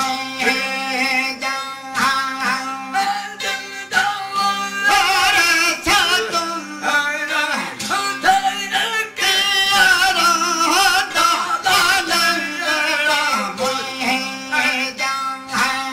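Male voices singing a Sindhi folk song to the accompaniment of long-necked folk string instruments. A steady drone sounds beneath the voices, with quick, even strokes on the strings.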